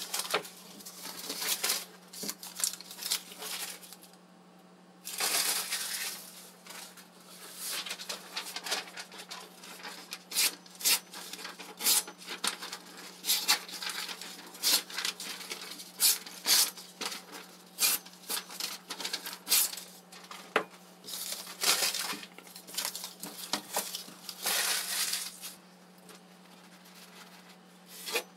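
Paper being sliced with a freshly sharpened kitchen knife to test its edge: crisp rustling and crinkling cuts in quick, irregular strokes, quieter near the end.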